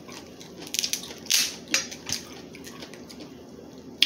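Crab leg shell cracking and crunching close to the microphone, a cluster of sharp crackles about a second in, then quieter chewing.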